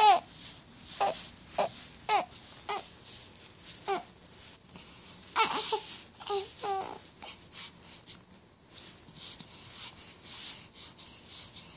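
Baby fussing with short cries: a string of brief pitched wails, about ten in the first seven seconds, each bending up and down, then only faint small noises.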